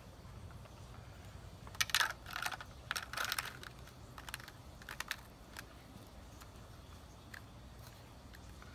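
Compressed wood-shaving pellets clattering into a plastic cup as they are poured by hand: a quick run of clicks and rattles, then a few scattered single clicks as stray pellets drop and the cup is settled.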